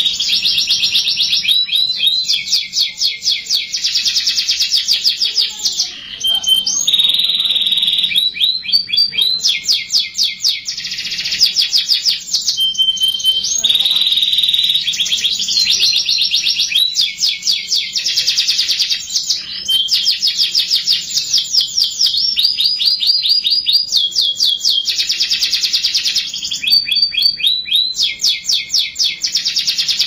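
Domestic canary singing a continuous song. It moves from one run of fast repeated notes to the next, each lasting a second or two, with short steady whistles between them.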